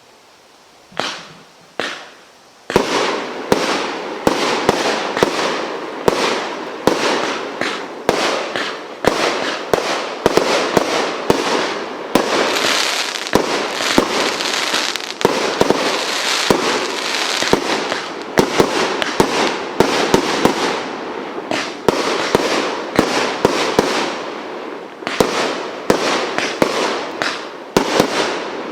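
Multi-shot firework barrage (Mr. Hyde) firing. A couple of single pops in the first two seconds, then a rapid, continuous run of sharp bangs, several a second, with a spell of dense crackling in the middle.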